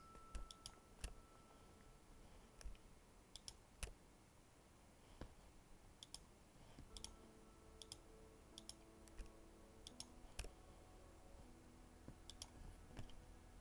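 Computer mouse clicking faintly: scattered single clicks and quick double clicks over near silence.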